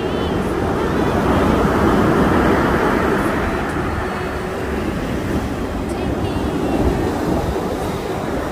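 Ocean surf breaking and washing up a sand beach: a loud, continuous rushing roar of breaking waves that swells about two seconds in and again near the end.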